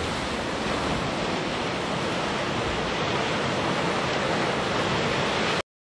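Sea surf breaking and washing over a rocky shore: a steady rush of waves, which cuts off suddenly near the end.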